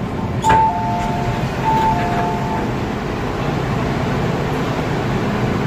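Inside an MTR first-generation M-Train car: a click, then an electronic two-note chime (high then low) sounded twice, over the steady hum of the train.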